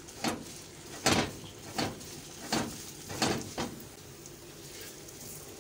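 Slotted spatula swiping over a paratha on a hot tawa, spreading ghee: about six short scraping strokes in the first few seconds, then quieter.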